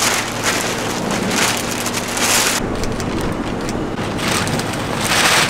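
Clear plastic bags stuffed with pink poly-mailer packages crinkling and rustling as they are grabbed and loaded into a mail cart, in several irregular surges.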